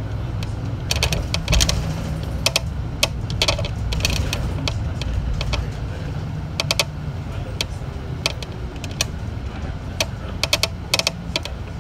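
City bus driving: a steady low engine and road rumble, with irregular rattling clicks, often in quick pairs or clusters.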